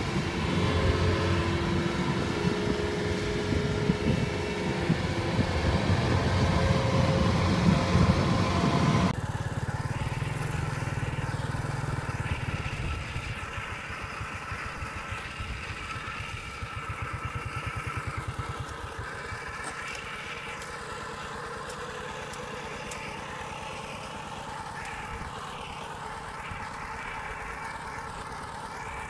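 A Kubota combine harvester's diesel engine runs under load. About nine seconds in it cuts abruptly to a quieter two-wheel walking tractor, whose Kubota RT120 single-cylinder diesel runs with an even beat as it ploughs through paddy mud.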